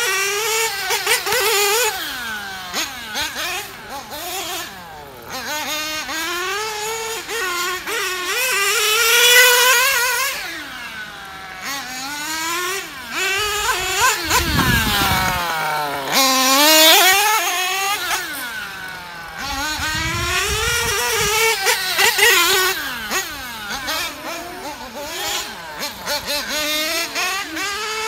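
The R&B 7T nitro engine of a Mugen MGT7 1/8-scale GT RC car revving up and down as it laps, its pitch rising on the straights and dropping off into the corners. It gets louder about three times as the car passes close by.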